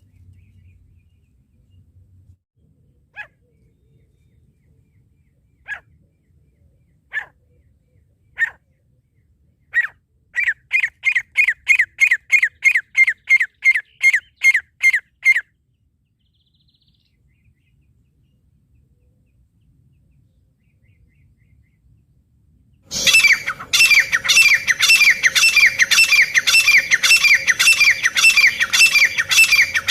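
Francolin (teetar) calling: a few single sharp notes, then a quick run of repeated calls about three a second. After several seconds of quiet, a much louder, denser run of calls with a steady hum under it starts and runs on.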